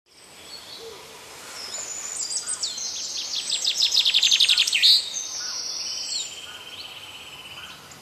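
Songbirds chirping and singing, with a fast high-pitched trill of repeated notes that builds over the first half and ends in a louder note about five seconds in, followed by a steady, buzzy high trill.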